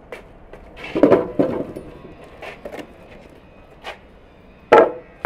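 Clanks and knocks of a rusty sheet-metal mangal grill being set down and handled: a cluster of loud knocks about a second in, and two sharp knocks near the end.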